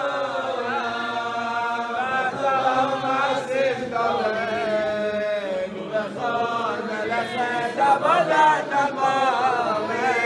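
A group of men singing a chant-like melody together in unison, many voices at once.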